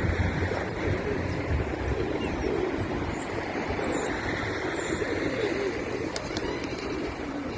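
Pigeons cooing: low, soft coos repeating every second or two over steady background noise.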